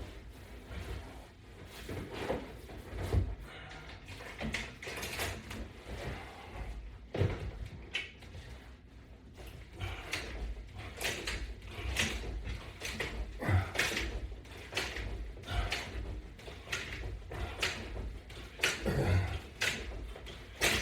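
Irregular knocks, clicks and rustling of resistance-band straps and their attachments being fitted and handled.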